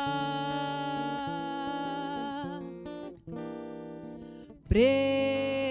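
Acoustic guitar playing and strumming in a song, between sung lines, with a loud new held note coming in near the end.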